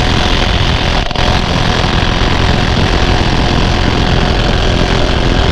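Cordless impact wrench hammering steadily at full power on a minivan lug nut that the user takes to be seized.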